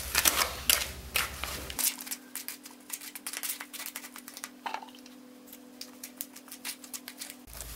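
Steel margin trowel stirring and scraping a stiff, damp concrete patching mix in a cut-down metal paint can: a run of gritty scrapes and clicks, busiest in the first couple of seconds.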